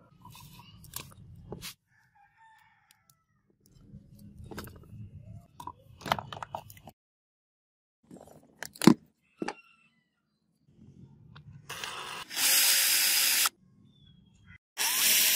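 Small clicks, taps and rattles of plastic and metal power-tool parts being handled, with one sharp click about nine seconds in. Later come two loud, harsh bursts of about a second each, a second and a half apart.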